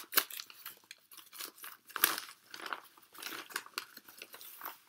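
Kraft-paper mailer envelope being torn open and handled, with irregular crinkling and tearing rustles as a hand reaches inside, a little louder about two seconds in.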